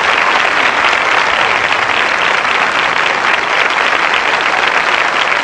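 Theatre audience applauding: steady, dense clapping.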